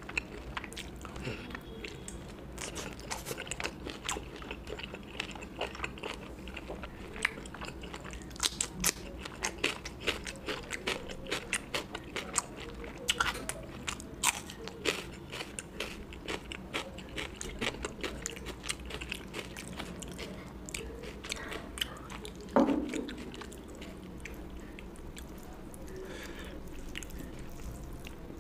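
Close-miked eating: a person biting and chewing food, with many quick, irregular wet mouth clicks and crunches. One louder low sound comes about three-quarters of the way through.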